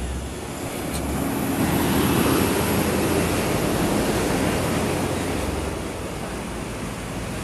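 Diesel cargo trucks climbing a steep mountain grade: a rigid truck's engine working hard as it passes close and pulls away uphill. The rumble swells about two seconds in and eases off toward the end.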